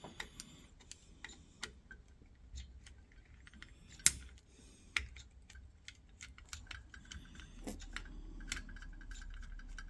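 Small scattered clicks and taps of hands and a screwdriver working on a motorised zone valve's head as its fixing screw is undone, with one sharper knock about four seconds in. A faint steady hum comes in near the end.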